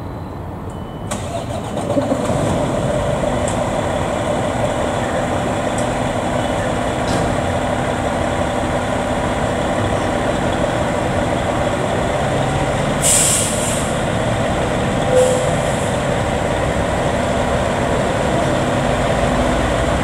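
A fire engine's diesel engine runs steadily and grows louder about two seconds in. About thirteen seconds in there is a short hiss of air brakes releasing, and a fainter hiss follows two seconds later.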